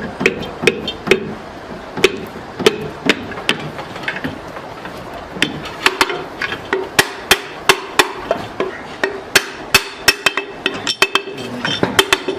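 Hand hammer striking repeatedly in an irregular rhythm, about two to three sharp blows a second, over a faint steady hum.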